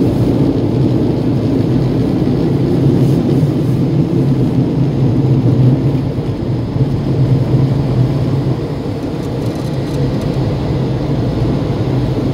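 Automatic car wash dryer blowers: a loud, steady low rush of air heard from inside the car's cabin. It eases a little about halfway through as the car pulls out of the bay.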